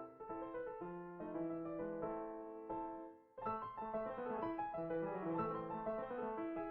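Background piano music, a melody of short notes that pauses briefly about halfway through.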